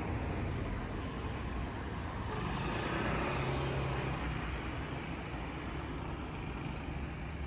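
Street traffic noise: a road vehicle's engine and tyres passing, swelling about three seconds in, over a steady low rumble.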